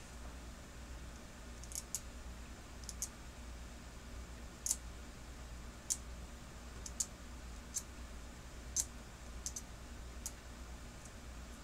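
Light, sharp clicks at irregular intervals, about one a second, over a steady low hum.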